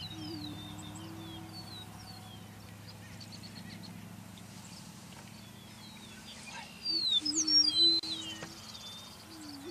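Greater prairie-chickens on a lek: low hollow booming notes a second or two long, repeated. Higher sliding calls sound over them, loudest about seven to eight seconds in.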